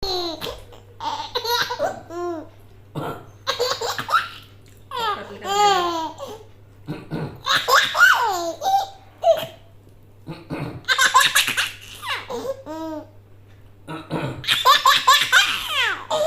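Five-month-old baby boy laughing in repeated high-pitched bouts about a second long. Between them a man coughs to set him off again.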